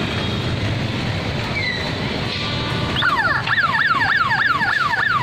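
Level-crossing electronic warning siren starting about three seconds in, a fast repeating falling wail of about four sweeps a second, over the steady noise of motorbike traffic crossing the tracks.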